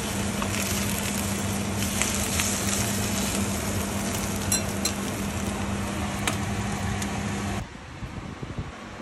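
Ham slices and scrambled egg sizzling in a nonstick frying pan, with a few light clicks and a steady low hum underneath. Near the end the sizzling cuts off, leaving a much quieter room.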